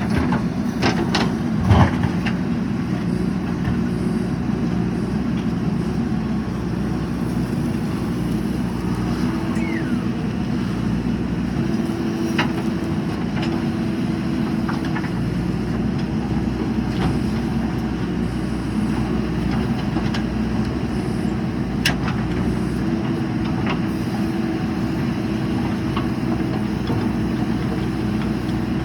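JCB 3DX backhoe loader's diesel engine running steadily under work, with a few sharp knocks, the loudest about two seconds in and another a little past the two-thirds mark.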